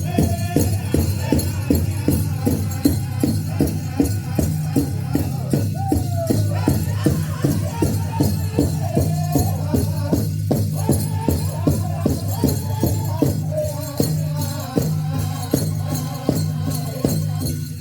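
Powwow drum group singing a grand entry song: a big drum struck in a steady, even beat of a few strokes a second, with the singers' voices over it and a shaking, jingling sound from the dancers' regalia.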